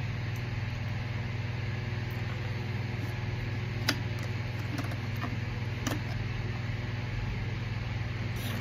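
Steady low mechanical hum with an even hiss, like a fan running, broken by a few short clicks.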